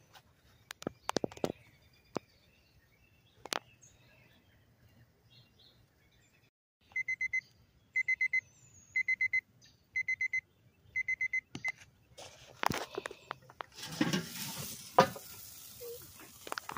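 Digital meat thermometer beeping: five groups of four short, high beeps, about one group a second, after a few clicks of handling. Near the end, steaks sizzle and crackle on the grate of an open charcoal kettle grill.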